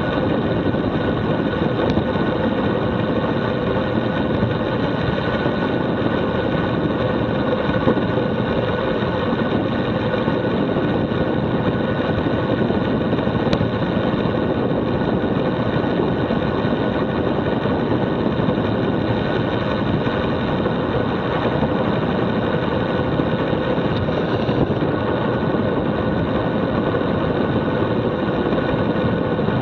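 Steady rush of wind and road vibration on a road bicycle coasting fast down a mountain pass, picked up by an action camera riding with the bike: an even, unbroken noise with a faint steady hum through it.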